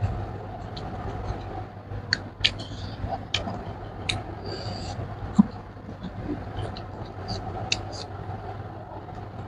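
Close-miked eating sounds: chewing and wet lip-smacking clicks as rice and pork are eaten by hand, over a steady background hum, with one louder knock about halfway through.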